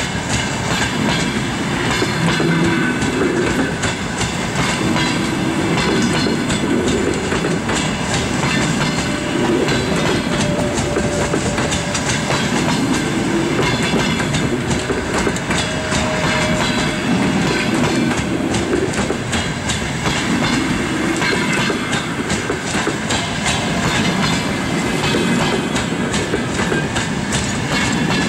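Russian passenger coaches rolling past at moderate speed, their wheels clattering over rail joints, with a swell in the sound about every two and a half seconds as successive coaches go by.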